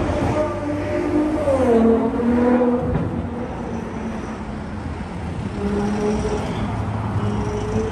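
Road traffic: a motor vehicle passes close by, its engine note dropping in pitch as it goes past, loudest about two seconds in. Another engine hum follows from other traffic.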